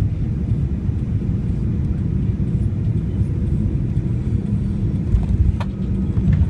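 Steady low rumble of a Boeing 737-900ER airliner during landing, with one sharp click about five and a half seconds in.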